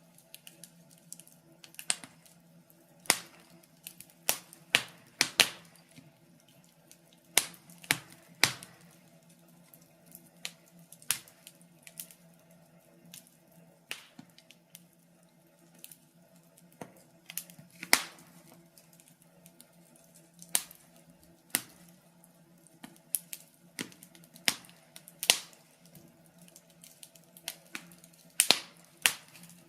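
Wood fire crackling in a fireplace: irregular sharp pops and snaps, some much louder than others, over a faint steady hum.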